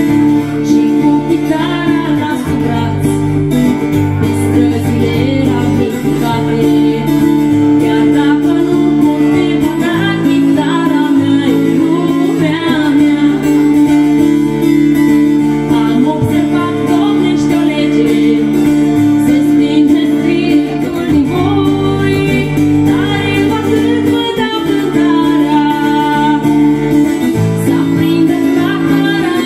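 A woman singing a folk song live, accompanying herself on acoustic guitar.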